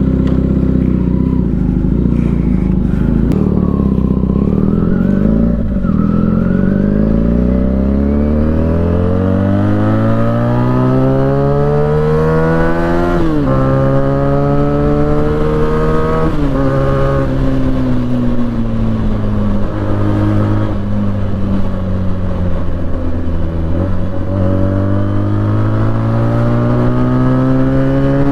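Benelli 300 motorcycle's parallel-twin engine under way, pulling up through the gears: the engine note climbs steadily, drops sharply at two upshifts about 13 and 16 seconds in, sags briefly, then builds again near the end.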